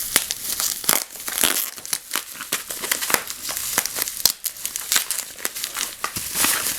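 Packing wrap crinkling and rustling in continuous irregular crackles as a wrapped lightsaber hilt is unwrapped by hand.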